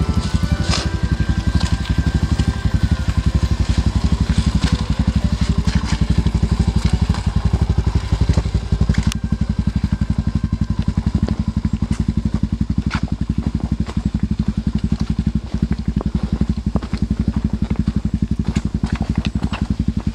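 Motorcycle engine running close by at a steady, even beat that barely changes in speed, with a few sharp clicks over it.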